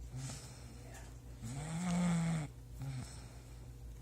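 Loud snoring: one long, pitched snore a bit after halfway, with a quieter breath before it and a short snort-like catch after it.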